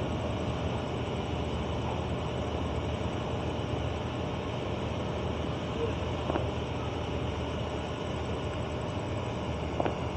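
Steady low engine drone from idling machinery, with a faint knock about six seconds in and another near the end.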